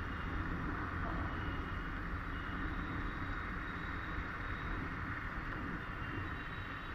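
A motorcycle riding at a steady speed: steady wind rush on the microphone with the bike's running and road noise underneath, unchanging throughout.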